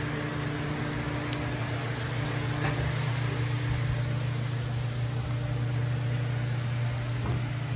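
Steady low mechanical hum of a running machine, with a fainter higher tone that fades out about three seconds in.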